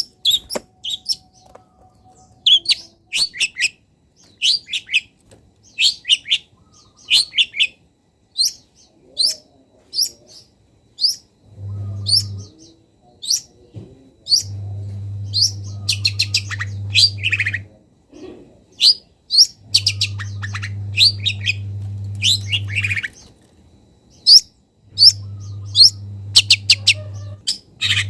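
Long-tailed shrike singing: a busy, varied song of short, sharp chirps in quick runs, going on throughout. From about halfway, a low steady hum comes and goes in stretches of a few seconds.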